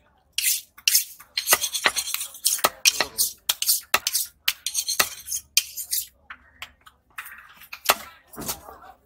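A heavy knife chopping through a hamour (grouper) tail section into steaks on a wooden block: a run of sharp, irregular strikes as the blade cuts through flesh and bone into the wood, several a second in places.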